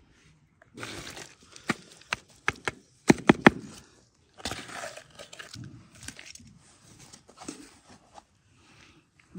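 Hands scooping and pressing crumbly soil around a young lemon tree in a plastic pot: bursts of gritty rustling, with a quick run of sharp clicks and knocks between about one and a half and three and a half seconds in.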